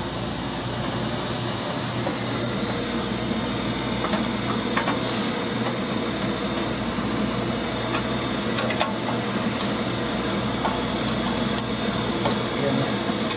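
Steady hum of running machinery, with a few light clicks and taps as a screw and a metal cover plate are worked into place on the dryer.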